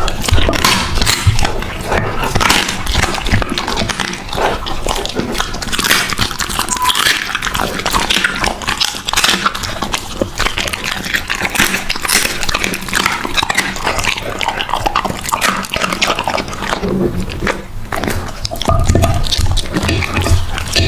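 A dog chewing and biting into food, close-miked, with rapid irregular crunches and clicks.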